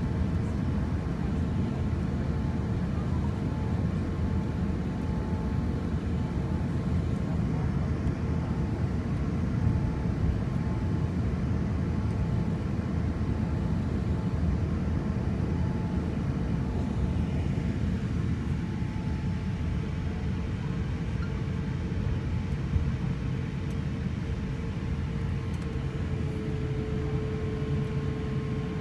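Steady low rumble of an airliner's jet engines and cabin noise heard from inside the cabin while the plane taxis, with a faint steady hum over it. Near the end the hum drops slightly in pitch and grows a little louder.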